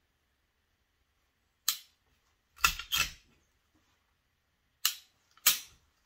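Sharp metallic clicks of a PSA Dagger Compact, a Glock-style striker-fired pistol, as its trigger and slide are worked dry while checking the trigger reset. About five separate clicks, with a close pair about three seconds in.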